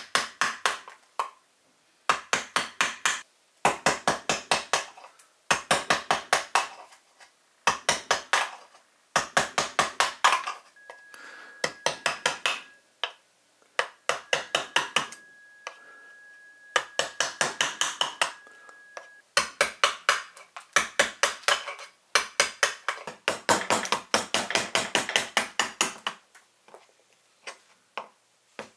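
Carving gouge cutting into the hollow of a wooden plate, in quick bursts of sharp clicking cuts with short pauses between them.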